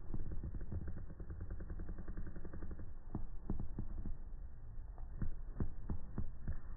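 Maine Coon cat chewing chicken, played back in slow motion: the chewing comes through as deep, muffled clicks over a low rumble. A run of louder clicks comes from about three seconds in.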